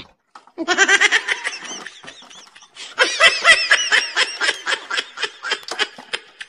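Two bursts of high-pitched laughter, each a rapid run of ha-ha pulses: a short one about half a second in, then a louder, longer one at about three seconds that fades away.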